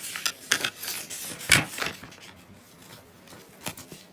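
Handling noise: an irregular run of knocks, clicks and rubbing, as of small objects being moved and tapped on a hard surface, loudest about one and a half seconds in.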